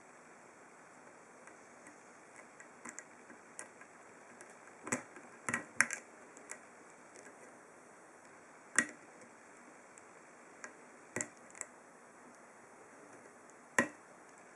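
Dimple pick and tensioner working the pins of a Master 1145PD dimple padlock: sparse, irregular, sharp little metal clicks as pins are lifted and set under tension, the loudest about six, nine and fourteen seconds in.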